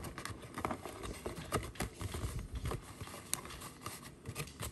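Cardboard box being handled: the inner tray of a white card box sliding into its sleeve, with scattered light knocks and scrapes of card against a wooden tabletop.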